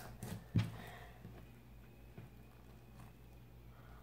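Glitter slime being pressed and kneaded by hand: a few soft squishes and sticky clicks in the first second, then only a faint steady hum.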